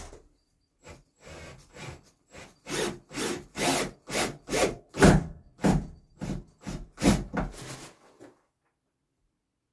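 Hand sawing through wood: a dozen or so short, uneven rasping strokes that come faster in the middle and stop about eight seconds in.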